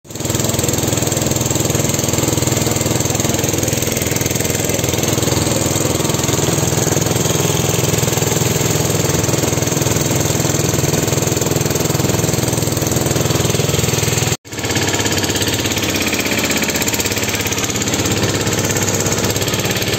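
Motor of a small tourist motorboat running steadily under way, with a brief break about two-thirds of the way through.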